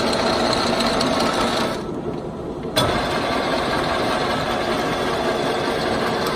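POREBA TPK90 engine lathe's carriage power rapid traverse running with a steady gear whine. It stops about two seconds in, then kicks in again with a sharp click about a second later.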